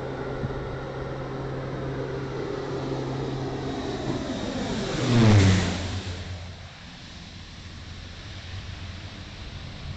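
Air Tractor AT-502 crop-dusting plane, with its Pratt & Whitney PT6A turboprop, passing low overhead. A steady propeller drone swells to its loudest about five seconds in, drops sharply in pitch as the plane goes by, then fades.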